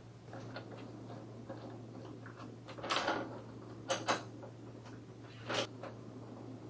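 A few short knocks and clicks from handling the monitor's mounting bracket and arm mount, over a steady low hum. One comes about three seconds in, two close together about a second later, and one more near the end.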